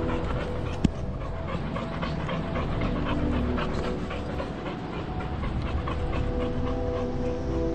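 Rapid, rhythmic panting over footsteps on a dirt trail and a low rumble of movement.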